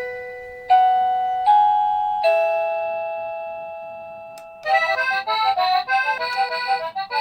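Wireless doorbell chime unit playing its melodies through its small speaker: three slow electronic chime notes, each ringing and fading. After a click about four seconds in, a fast electronic tune starts, as the melody changes with each press of the melody button.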